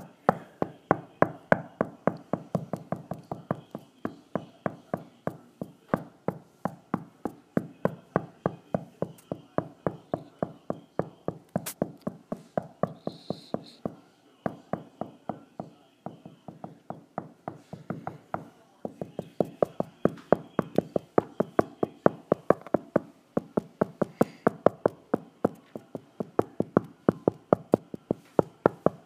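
Percussive backing music: a steady rhythm of knocking taps, about three a second, with a few short breaks.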